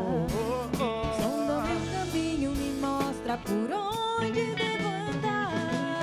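A woman singing a Christian worship song with a live band, her voice sliding and wavering between notes in ornamented runs over sustained keyboard and guitar chords.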